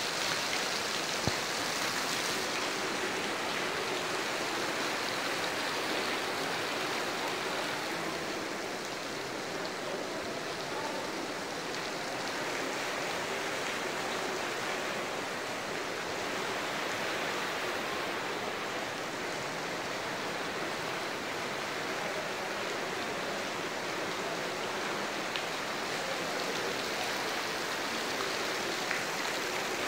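Heavy rain pouring down on a lawn and leafy shrubs: a steady, even hiss of a downpour.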